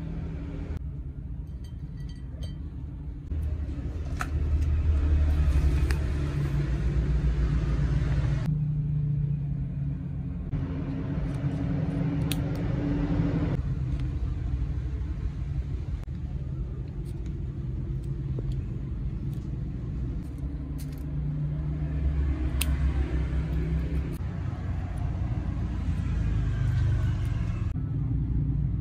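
A steady low rumble, with occasional soft clicks and crinkles from plastic sausage casings and a foil sachet being handled.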